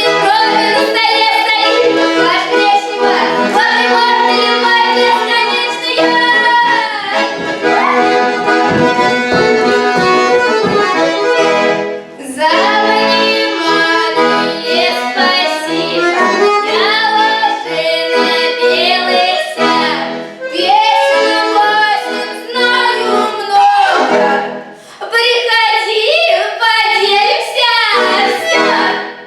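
A child singing a Russian folk-style song over accordion accompaniment, with brief breaks about twelve and twenty-five seconds in; the music ends near the end.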